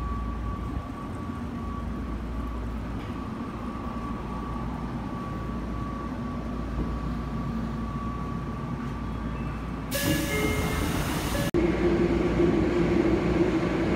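Tokyo Metro subway car running, heard from inside: a steady low rumble with a thin high whine. About ten seconds in, a loud hiss lasts a second and a half and cuts off suddenly, followed by louder running noise.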